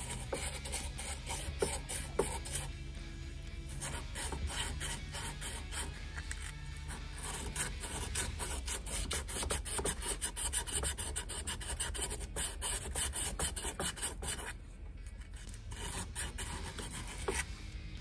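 Sandpaper rubbed by hand over the metal housing of a Ford Model A distributor: quick, scratchy back-and-forth strokes that stop briefly about three-quarters through and then resume.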